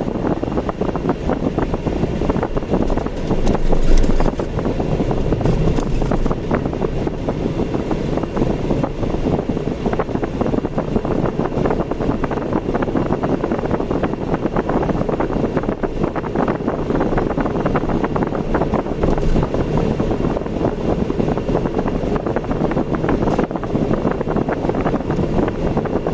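A car driving along: steady road and engine noise with wind rumbling on the microphone, briefly louder about four seconds in.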